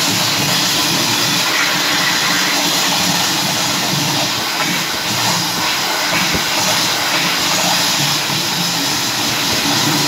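Wallgate automatic hand wash dryer on its hand-drying stage: a steady, loud rush of blown air from the outlet over the hand held beneath it.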